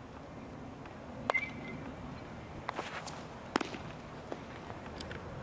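A few sharp leather pops over a faint outdoor background, the loudest about three and a half seconds in: a pitched baseball smacking into a catcher's mitt.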